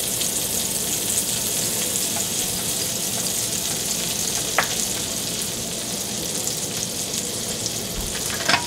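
Butter melting and sizzling in hot olive oil in a stainless steel skillet: a steady hiss as the butter foams, with two brief pops, one about halfway and one near the end.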